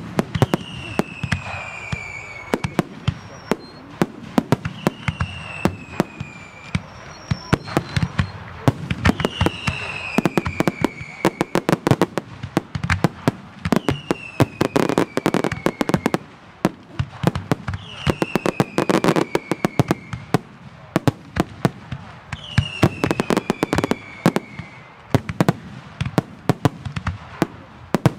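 Aerial fireworks display: a dense barrage of shell bursts and crackling, with a high whistle falling in pitch about every four seconds.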